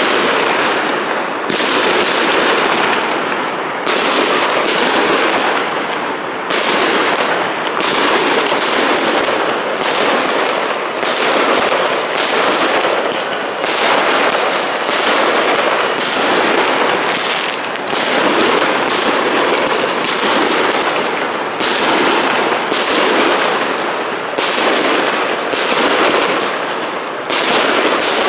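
Aerial fireworks bursting in rapid succession: an unbroken din of bangs and crackling, with sharper reports about once a second.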